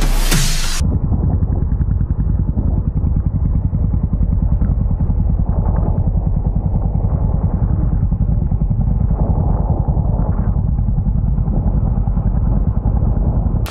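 Royal Enfield motorcycle running at road speed, its exhaust a steady, rapid low thumping. Music cuts off just under a second in.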